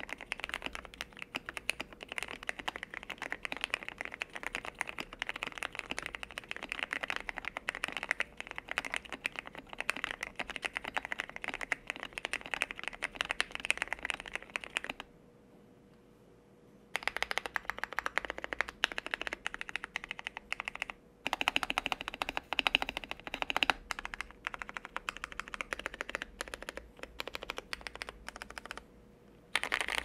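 Steady fast typing on a GMMK Pro with a polycarbonate plate and foam mod, lubed Cherry MX Black linear switches and thick PBT NP-profile keycaps: a dense clatter of keystrokes. The typing stops for about two seconds halfway through, then picks up again with brief pauses.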